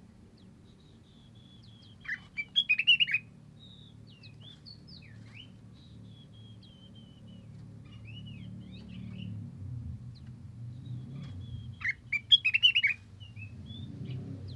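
Aviary songbirds, cucak wilis leafbirds and flamboyans, calling and singing: thin whistles and short falling trills, with two loud bursts of rapid chirping, one about two seconds in and one near the end. A low steady hum runs underneath.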